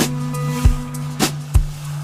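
Background music: a drum beat with sustained pitched notes underneath.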